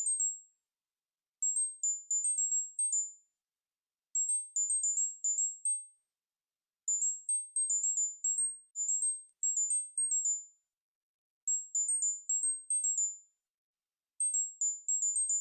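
Tinnitus-relief tone pattern: quick runs of short, very high-pitched pure beeps hopping between a few close pitches. They come in bursts of a second or two, with brief silences between, about six bursts in all.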